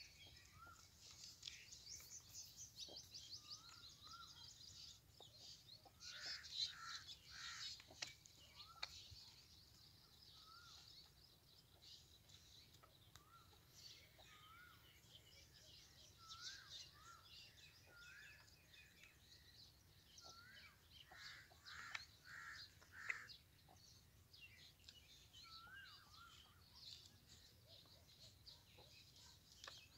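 Faint birdsong: small birds chirping with short rising notes repeated every second or two, and busier, higher chirps and trills at times.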